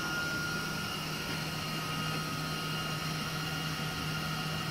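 A steady low hum with a faint high whine over a light hiss, even and unchanging, with no distinct events.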